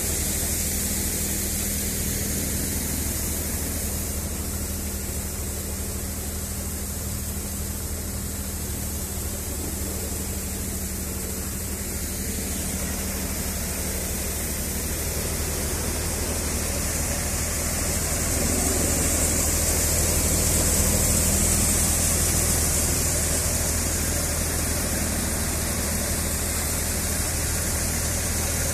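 Four-fan hadamba cutter-thresher running steadily: a dense rushing noise from its fans and drum over a low, steady engine hum. It swells a little louder a little past the middle.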